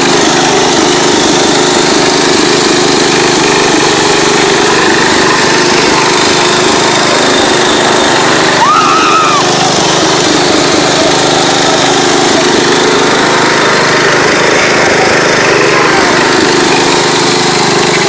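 Massey Ferguson 7 lawn tractor's small engine running loud and steady under load as the mudding mower is driven through mud and leaf litter in the woods.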